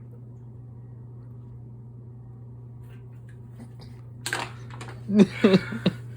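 A steady low hum, then about four seconds in a brief breathy burst followed by a run of short, loud, strained vocal sounds from a person.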